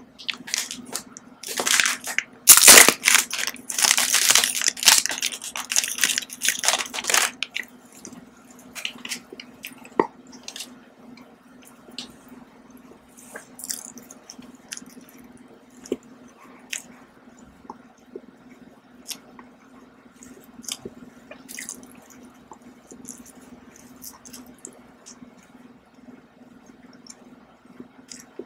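A plastic candy wrapper crackles loudly for several seconds as it is torn open and handled. From about eight seconds in, close-miked chewing follows, with small wet mouth clicks, as a chocolate-coated snack is bitten and eaten.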